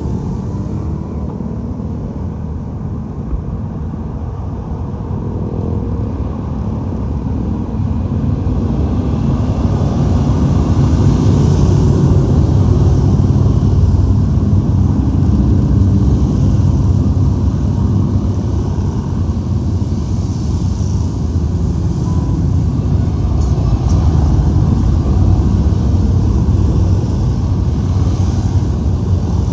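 A long column of motorcycles riding past, many engines together making a continuous low rumble that grows louder about ten seconds in and stays loud.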